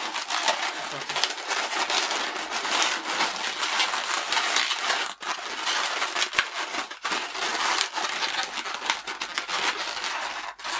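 Inflated latex 260 modelling balloons being pressed and twisted in the hands, rubbing against each other and the fingers. It makes a continuous crinkly friction noise full of small clicks.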